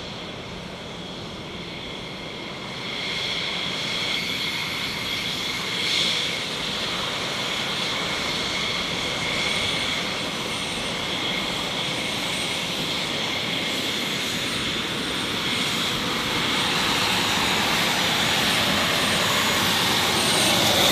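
U.S. Air Force A-10 Thunderbolt II's twin TF34 turbofan engines whining steadily at taxi power, with a high steady whistle over the rush of the jet exhaust. The sound grows louder about three seconds in and again near the end.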